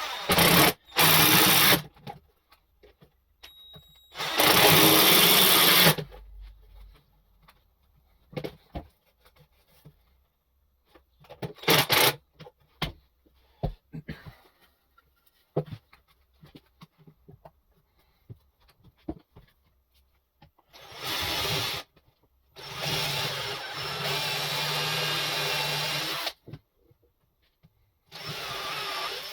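Power drill run in seven short bursts, most a second or two long and one about three and a half seconds, with small knocks and handling clicks in between.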